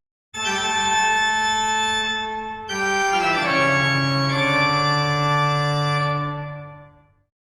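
Background music of sustained organ chords, with notes sliding downward about three seconds in and the music fading out near the end.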